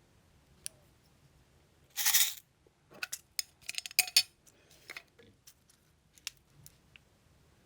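Small hard objects being handled: one short scraping rustle about two seconds in, then a quick run of light clicks and taps, and a few scattered clicks near the end.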